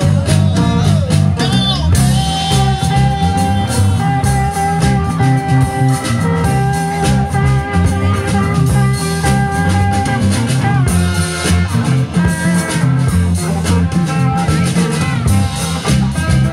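Live blues-rock band playing: electric guitars, bass guitar and drum kit. A lead line holds one long note for several seconds in the middle.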